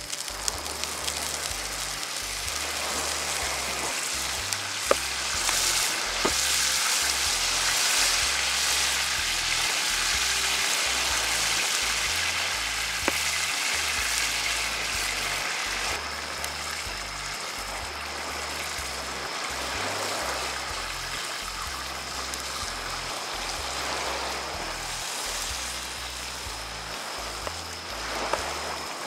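Demi-glace sauce sizzling and bubbling in a hot cast-iron skillet around a hamburger steak, louder through the first half and easing off later, with a few sharp ticks.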